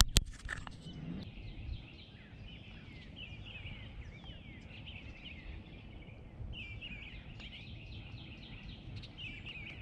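Songbirds chirping and singing in quick repeated phrases, over a steady low background rumble. A sharp knock comes right at the start, followed by a few softer knocks in the first two seconds.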